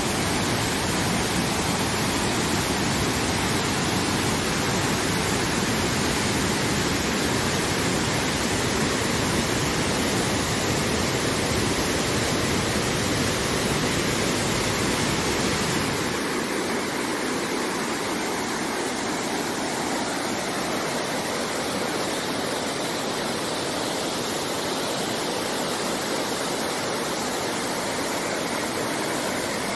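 Waterfall cascading over rock ledges, a steady rush of white water. About sixteen seconds in the sound changes abruptly and its low rumble drops away.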